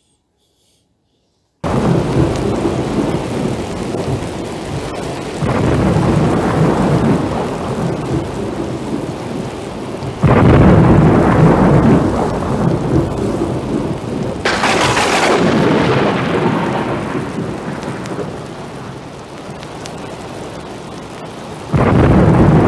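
Thunderstorm: thunder rumbling over heavy rain, starting suddenly about a second and a half in. The rumble swells several times, with a sharp thunderclap a little past halfway, and a last loud rumble near the end.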